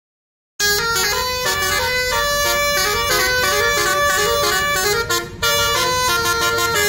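A Basuri multi-trumpet bus air horn (telolet horn) on a Nafit Trans bus, with its roof-mounted trumpets playing a melody. Several trumpets sound together and step quickly from note to note. It cuts in about half a second in and breaks off briefly around five seconds.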